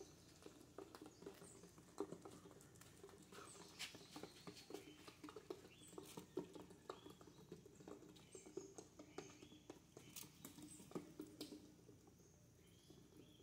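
Near silence outdoors: faint scattered ticks and taps, with a few faint high chirps.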